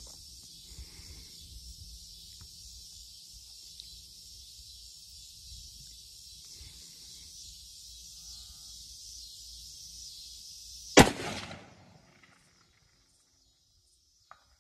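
A single shot from a .284 Winchester bolt-action rifle about 11 seconds in: one sharp, loud crack with a brief echoing tail.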